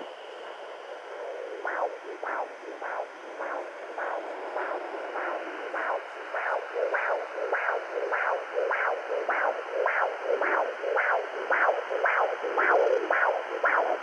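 Handheld fetal doppler's speaker giving a rhythmic pulse of about a hundred beats a minute over a steady hiss. The pulse is faint at first and grows clearer and louder after a couple of seconds. The uploader cannot tell whether it is a baby's heartbeat.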